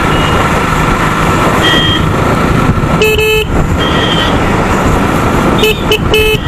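Constant wind and road rush over a running motorcycle engine. A vehicle horn honks: one toot about three seconds in and two short toots near the end, with fainter horns further off.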